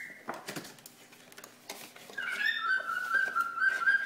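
A few light clicks and rustles of a cardboard box being handled, then about two seconds in a run of high, quickly repeated chirping calls from an animal starts up and carries on.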